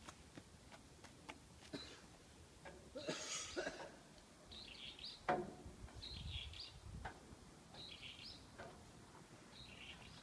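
A bird calling over and over, a short high call every second and a half or so, faint against light knocks and footsteps of a small child on a wooden play structure; the sharpest knock comes about five seconds in.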